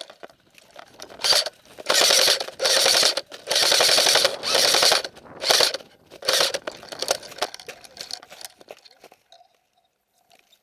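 Airsoft electric rifle firing on full auto in a string of about eight bursts, some short and the longest about a second, loudest in the middle, then stopping.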